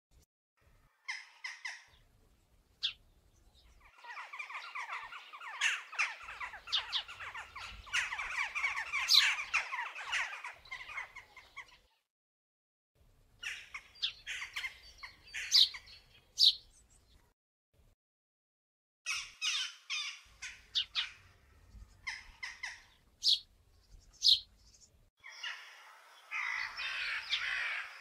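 Birds calling in groups of short, rapid notes, with a long, dense stretch of chatter from about four to twelve seconds in and a shorter dense burst near the end.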